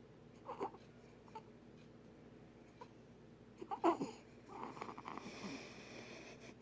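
Stridor: noisy, raspy breathing with a high whistling tone that comes in about two-thirds of the way through, after a few short whimpering cries, the loudest near the middle.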